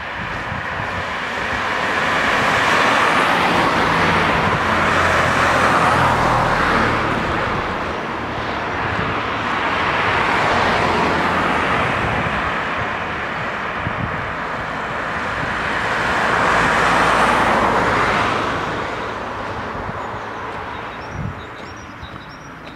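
Cars passing one after another on a road, each rushing swell of tyre and engine noise rising and fading away, about four passes. Faint high chirps come near the end.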